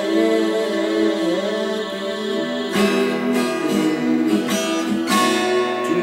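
Twelve-string acoustic guitar being strummed, its chords ringing on, with hard strokes about three and five seconds in.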